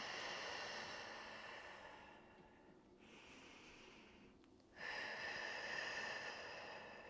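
A person's long, audible Pilates-style breath out, then after a pause a second long breath about five seconds in.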